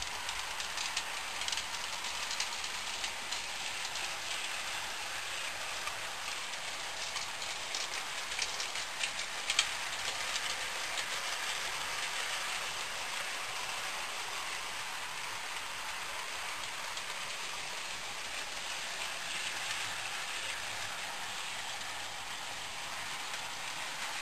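Model trains running on a model railway layout: a steady crackly hiss of small wheels and motors on the rails, with scattered light clicks and one sharper click about nine and a half seconds in.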